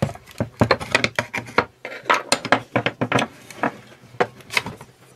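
Irregular metal clicks, knocks and scrapes as the metal disc guard of a Kress 802 WS angle grinder is worked loose with a small hex key and lifted off the gear head.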